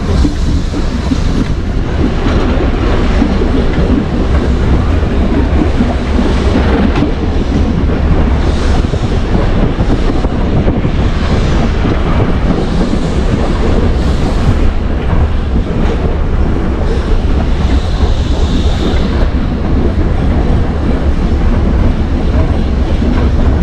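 Heritage electric tram running along the track, a loud, steady noise with a heavy low rumble throughout.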